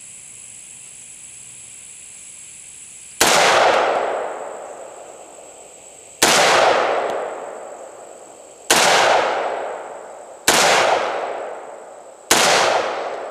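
Five single shots from a semi-automatic 300 AAC Blackout pistol, fired two to three seconds apart, each with a long echoing decay. The handloaded rounds all feed and cycle without a stoppage.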